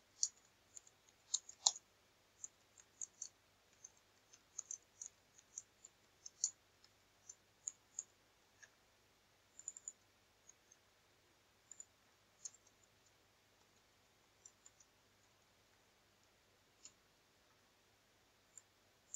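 Faint, irregular keystroke clicks from typing on a computer keyboard, in short runs, thinning out over the second half.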